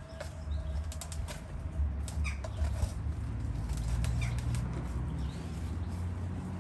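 Young Labrador puppy gnawing on a cardboard paper towel tube: the cardboard crackles and crunches in short spells of clicks, over a steady low rumble.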